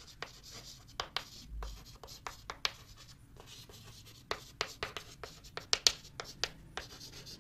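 Chalk writing on a blackboard: quick taps and short scratches as letters are formed. The strokes thin out in the middle and come in a dense run near the end.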